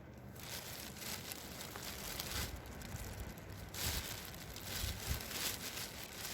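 Plastic bread bag crinkling and rustling as bread is torn and shaken out of it.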